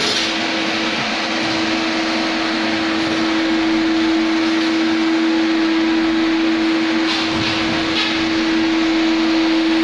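Steady machine hum with a constant low tone over a rushing noise, like a running fan or blower; a few faint ticks come about seven to eight seconds in.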